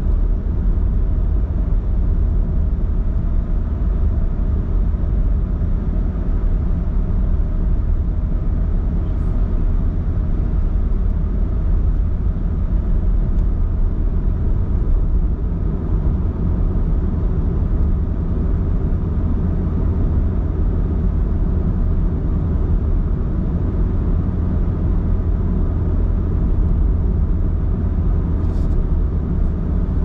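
Car driving along a road, heard from inside the cabin: a steady low rumble of engine and tyre noise.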